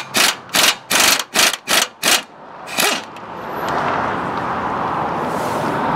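Air impact wrench removing the bolts that hold a steering bell crank to the truck frame: a quick series of short bursts, about three a second, then after a pause it runs steadily.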